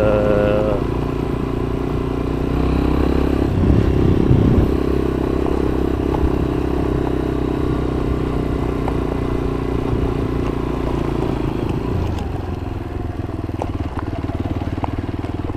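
Motorcycle engine running as the bike is ridden, its note rising and swelling briefly a few seconds in, then easing off near the end, with a few light clicks.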